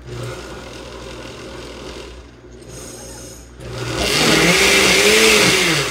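Electric blender given a quick pulse to purée a thick jerk marinade. It is quieter at first, then runs loud for the last two seconds, its motor pitch wavering up and down as it works through the mix.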